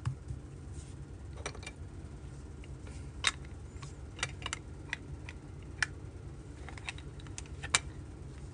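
About ten light, irregular clicks and taps, the loudest about three seconds in and another near the end, over a steady low hum.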